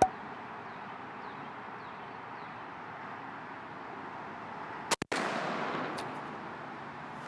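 A single shot from a Mossberg SA-28 semi-automatic 28-gauge shotgun firing a TSS turkey load about five seconds in, its report echoing and dying away over the next second or two. A sharp click comes at the very start.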